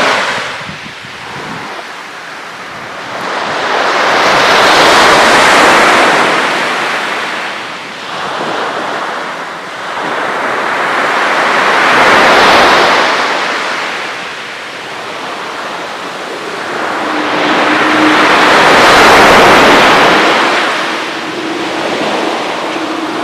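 Gentle Mediterranean waves washing onto the shore, the surf rising and falling in slow swells about every seven seconds, three in all. A faint steady hum joins in over the last few seconds.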